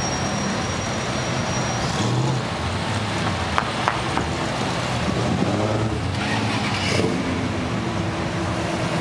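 Cars driving slowly past in a line, their engines running with a steady low note that rises and falls as each one goes by. Two sharp clicks come about three and a half to four seconds in.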